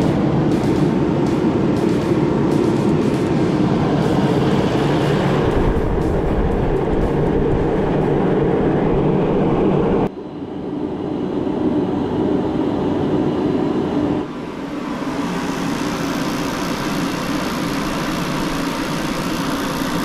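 Mr. Heater MH60CFAV forced-air propane heater running, its electric fan and propane burner making a steady rushing hum. The sound drops and changes tone about halfway through, and shifts again a few seconds later.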